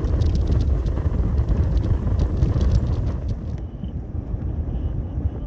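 Gale-force wind buffeting the microphone: a heavy, gusting low rumble, with scattered sharp clicks through the first three seconds or so.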